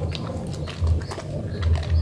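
Wet bar soap being lathered by hand: squelching with quick crackling clicks, over dull low thumps at an uneven beat.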